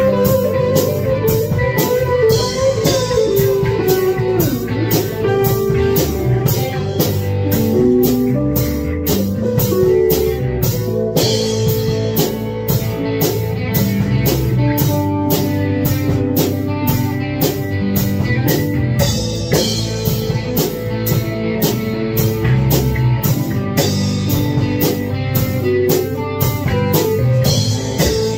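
Jackson electric guitar playing a rock/blues jam with bent lead notes, over a drum kit keeping a steady, evenly spaced cymbal beat.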